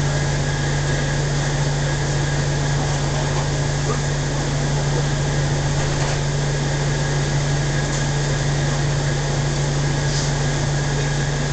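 Steady hum inside the passenger car of a JR West Hokuriku Line local electric train: a constant low drone under an even wash of running and ventilation noise.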